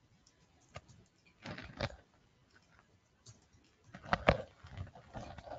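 Computer keyboard typing: scattered single keystroke clicks, with a louder run of keystrokes about four seconds in.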